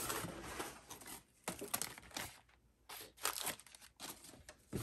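Packing paper and plastic wrapping crinkling and rustling in hand, in short irregular bursts, as new parts are unwrapped and handled.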